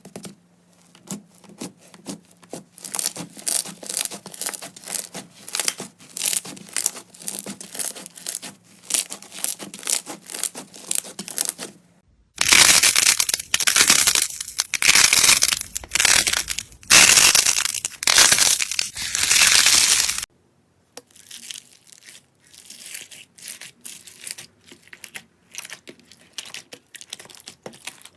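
Slime being squeezed and pressed by hand: a rapid run of sharp crackling clicks and pops. In the middle stretch, between cuts at about twelve and twenty seconds, it turns louder and denser, in rough crackly bursts.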